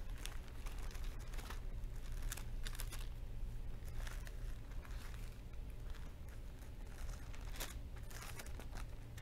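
Paper pages rustling and crinkling as a Bible is leafed through, in short irregular crackles every second or so, over a steady low hum.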